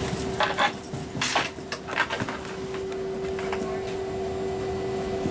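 Cabin ambience inside a parked Mitsubishi CRJ-700 airliner: a steady hum, with scattered knocks and rustles in the first couple of seconds.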